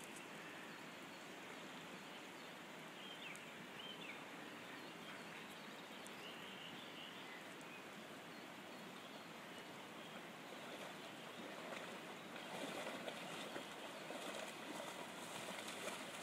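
Steady rush of a shallow river running over stones, with a few short bird chirps. In the last few seconds it grows louder and choppier with the splashing of an Old English Sheepdog wading through the shallows.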